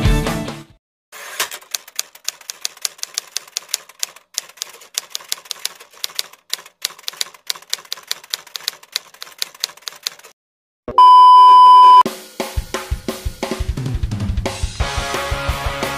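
Typewriter key clicks, about five a second for some nine seconds, then a loud one-second beep, then music with drums and guitar coming in.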